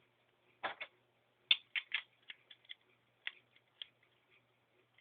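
Grip panels being fitted onto the frame of a Stinger P311 airsoft pistol: a string of light, irregular clicks and taps as the parts are handled and pressed into place.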